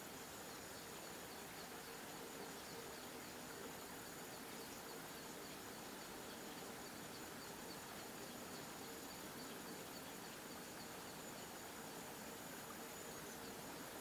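Faint, steady outdoor background hiss with a thin, high steady tone and a faint rapid ticking through the middle.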